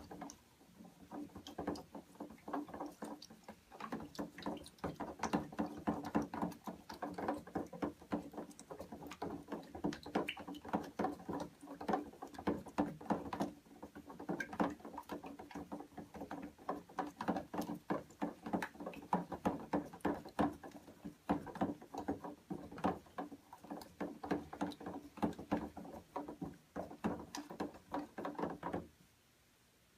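A plastic spoon stirring a mixture of glue, water and food colouring in a bowl: quick, irregular scraping and tapping strokes, several a second, that stop abruptly just before the end.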